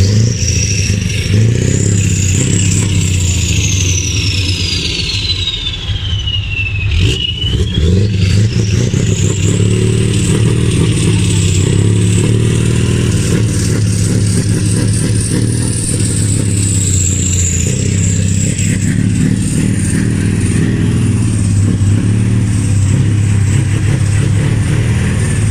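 A truck engine running steadily, with a high whistling tone that slides down and climbs back up in the first ten seconds, then holds high.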